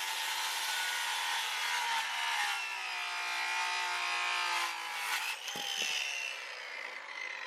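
Power saw cutting wood, a steady whine and hiss that winds down about five seconds in, followed by a couple of sharp knocks.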